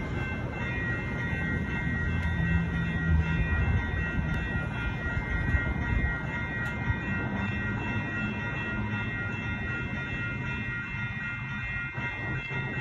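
Electronic railroad-crossing bell (a WCH Type 3) ringing steadily as the crossing activates, over a low rumble.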